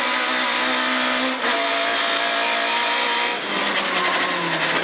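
Opel Astra rally car's engine heard from inside the cabin, pulling hard with a short break in its note about a second and a half in. Its revs drop about three and a half seconds in as the driver eases off at the end of the stage.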